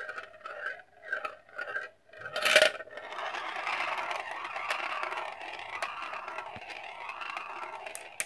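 A marble rolling round a red plastic spiral funnel, its rolling swelling and fading quicker and quicker as it circles in. About two seconds in it drops through the centre hole with a loud clack, then rolls steadily around the plastic bowl below, with a click near the end.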